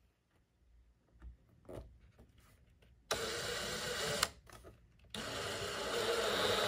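Power drill with a step bit enlarging a pilot hole to 1/4 inch in a plastic shell. Soft handling knocks for about three seconds, then the drill runs briefly, stops, and starts again steadily about five seconds in.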